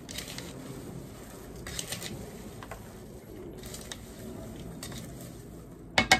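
Popcorn being stirred in a plastic mixing bowl with a serving spoon and a hand: soft rustling with light scrapes and clicks. Near the end come a few sharp clacks of the spoon against the bowl.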